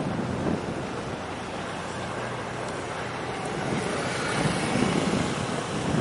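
Wind buffeting the microphone in uneven gusts over choppy harbour water.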